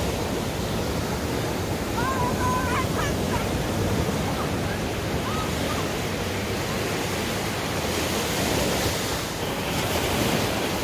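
Ocean surf breaking and washing up on a sandy beach, a steady wash of noise, with wind buffeting the microphone.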